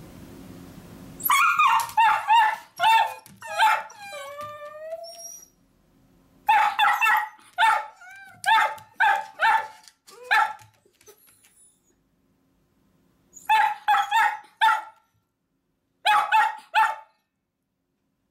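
Miniature dachshunds barking in quick bursts of sharp barks with pauses between, and a high, wavering whine about four seconds in. The dogs are barking at the door to be taken along as their owner leaves for work.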